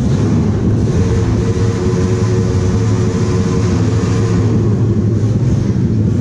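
Four-valve motorcycle with a loud open exhaust held at high revs for a loudest-pipe test, a steady, very loud drone.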